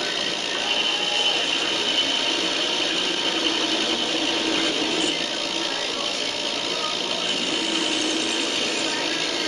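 Capstan lathe running steadily: constant mechanical noise with a steady high-pitched whine over it.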